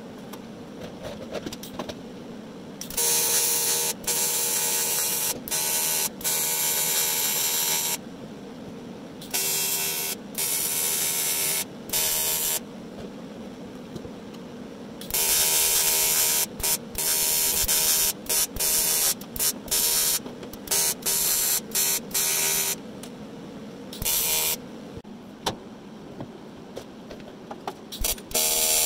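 AC TIG welding arc on aluminium tubing, buzzing steadily in stretches of a few seconds each, with short breaks and clicks between the passes.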